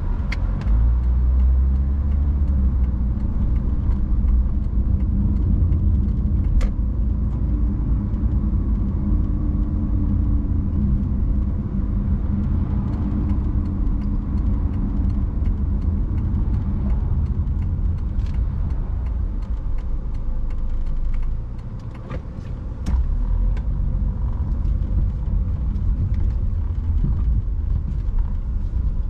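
A car driving, with a steady low rumble of road and engine noise. The noise eases briefly about two-thirds of the way through, and a few faint clicks come over the drone.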